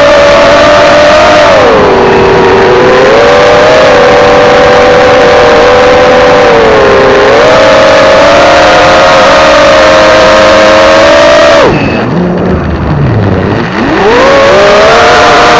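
Quadcopter's electric motors and propellers whining loudly, heard through the onboard camera, the pitch dipping and climbing with throttle. About twelve seconds in the whine drops off sharply as the throttle is cut, then climbs back up near the end.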